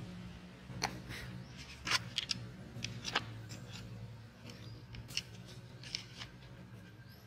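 Dry coconut husk fibres crackling and snapping as a baby monkey picks and tugs at them, a scatter of short, sharp crackles at uneven intervals over a steady low hum.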